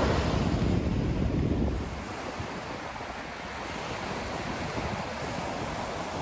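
Wind buffeting the microphone over the wash of sea surf. The wind rumble drops away about two seconds in, leaving a steady wash of waves.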